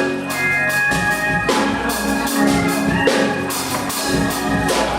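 Church band music: held organ chords over a drum kit keeping a steady beat with cymbal hits.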